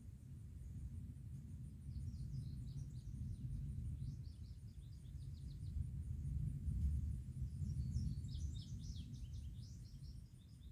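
Low rumble of distant thunder from an approaching storm, swelling a little past the middle. Small birds chirp over it in two quick twittering runs, early and near the end.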